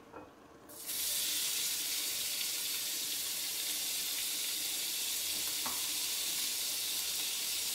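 Bacon pieces sizzling in hot olive oil in a stainless steel frying pan. The sizzle starts suddenly under a second in, as the bacon goes into the pan, then holds steady.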